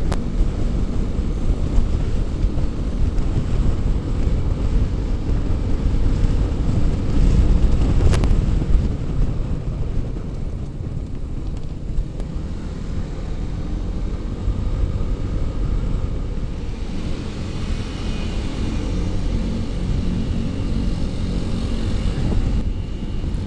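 Honda ADV150 scooter's single-cylinder engine running steadily while riding, under a heavy low rumble of wind and road noise, with a sharp click right at the start and another about eight seconds in.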